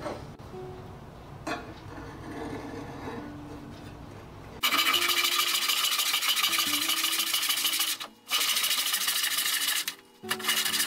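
Handsaw cutting through a wooden block, fast-forwarded to four times speed so the strokes run together into one fast, continuous rasp. It starts abruptly about four and a half seconds in and breaks off briefly twice near the end.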